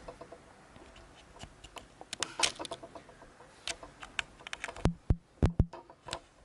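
Handling clicks and knocks from a Rode VideoMic GO being mounted on a camera's hot shoe and plugged in, close to the camera's microphone. A scattered run of small clicks, with the heaviest few knocks between about five and six seconds in.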